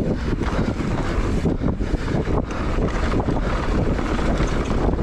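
Wind rushing over the camera microphone during a fast mountain-bike descent, with a steady rumble of tyres on a dirt trail and the bike clattering over small bumps.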